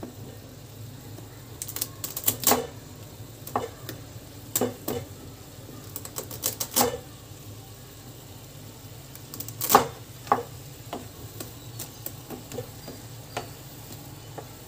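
Irregular sharp clicks and knocks of a wooden spatula against the pan as a dry Maggi noodle cake is broken up and pushed into simmering water, over a steady low hum.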